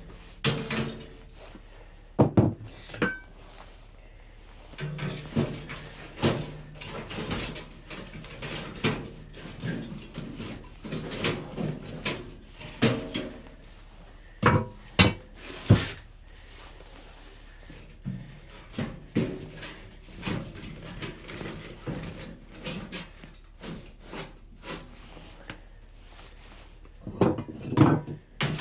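Irregular knocks, thumps and clatter of someone moving about and handling things inside a small wooden cabin, with a few louder sharp bangs scattered through.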